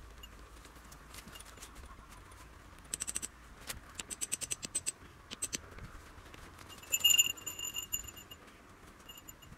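Quick metallic taps and clinks from a metal tent peg being set for a tarp guy line. About seven seconds in, the loudest part: a short run of ringing metal pings.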